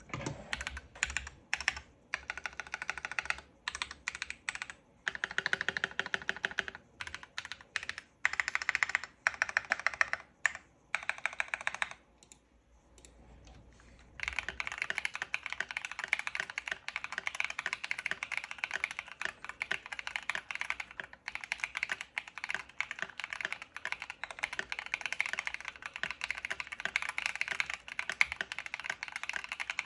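Keychron Q2 65% mechanical keyboard with KTT Kang White V3 linear switches on an aluminum plate, dampened with a tape mod and foam, being typed on. For about the first twelve seconds the typing comes in short bursts with brief gaps. After a pause of about two seconds it becomes continuous fast typing.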